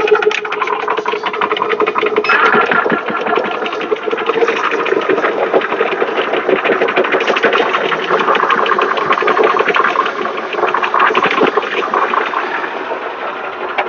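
Several shoebox-style high-pressure PCP airgun compressors running together: a loud, dense, rapid clatter of pistons over a steady hum, pumping air toward about 3,000 psi.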